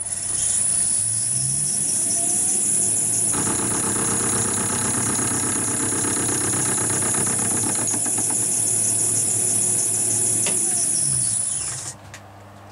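Metal lathe starting up with a steady high whine, then a carbide tool taking a facing skim across a triangular axle plate for about seven seconds: an intermittent cut, the tool meeting the plate's corners every turn, giving a rapid rhythmic clatter. Near the end the cut stops and the lathe is switched off and spins down.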